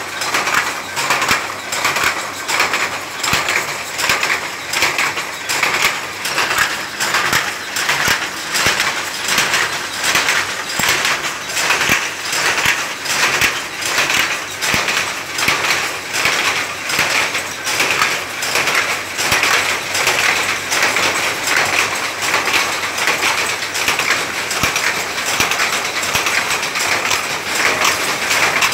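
Power loom running and weaving, an even, repeating mechanical clatter that keeps up without a break.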